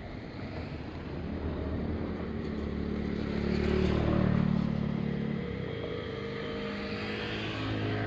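Nankai Kada Line 'Medetai Densha' electric train passing the level crossing. Its running sound grows to a peak about four seconds in, then eases off to a steadier hum with a faint rising tone near the end.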